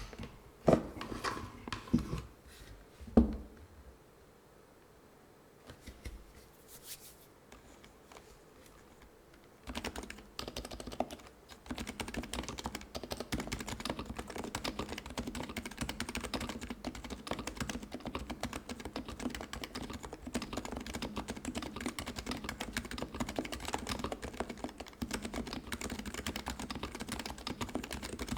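Typing on a Topre-switch keyboard (HHKB Pro2 PCB in a custom Pro2.K case with Realforce R3 45 g domes). A few loud separate knocks in the first three seconds, a quiet pause, then steady fast typing starts about ten seconds in.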